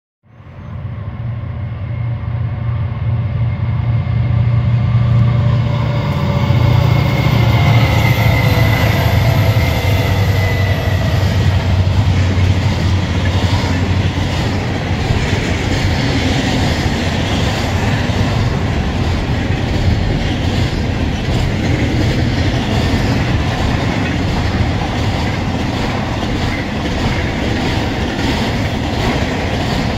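Freight locomotives of a double-stack container train rumbling past, with a falling whine as they go by. Then the container cars roll past with a steady, rhythmic clatter of wheels over the rails.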